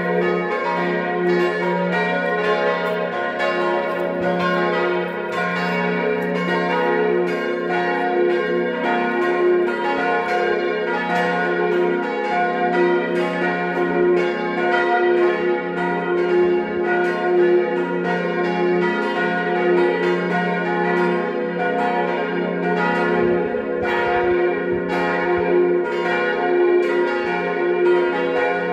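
Church bells, tuned C, B-flat, A-flat and F, ringing together in a continuous overlapping peal, strike after strike with no pause.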